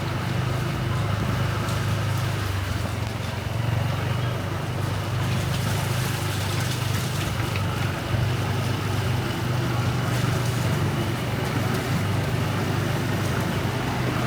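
Steady street traffic noise from passing motorbikes and cars, an even low rumble with a hiss above it that does not let up.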